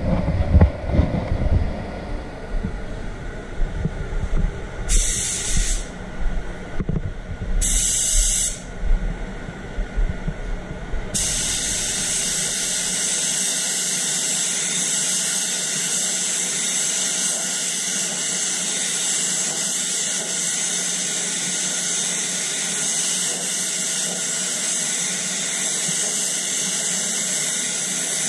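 Compressed-air paint spray gun: two short bursts of air hiss about 5 and 8 seconds in, then from about 11 seconds a loud, steady hiss as the gun sprays paint continuously. Rumbling handling noise from the painter's movement comes first.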